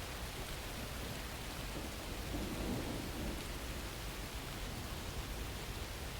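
Steady rain with a low rumble of thunder: a rain-and-thunderstorm ambience.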